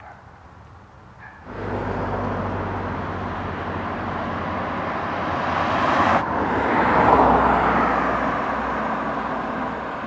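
Road traffic: cars passing along a road, a steady rush of tyres and engines that starts abruptly about a second and a half in and swells loudest as a car goes by around seven seconds in.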